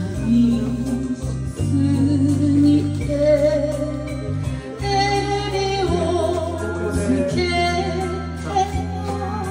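A woman singing karaoke into a handheld microphone over a backing track, her voice wavering on long held notes.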